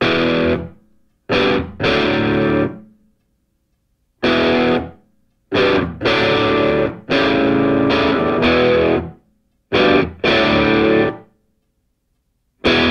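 Background music: distorted electric guitar playing chords in short stop-start bursts, each cut off abruptly and followed by a brief silence.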